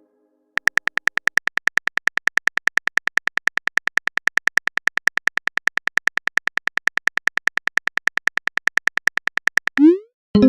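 A fast, even string of short high electronic beeps, about seven a second, for roughly nine seconds, ending in a quick upward-sliding tone.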